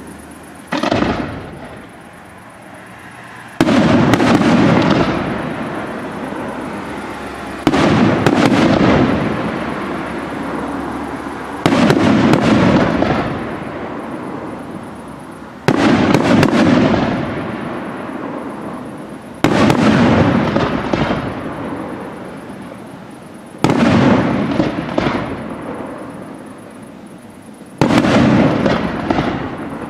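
Fireworks display: large aerial shells bursting with seven loud bangs about four seconds apart. Each bang is followed by crackling and a tail that dies away over a couple of seconds. A smaller pop comes about a second in.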